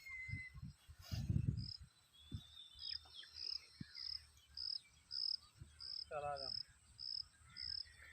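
An insect, most like a cricket, chirping in an even, high-pitched rhythm a bit under twice a second. Low rumbling comes in gusts underneath, and a short pitched call sounds about six seconds in.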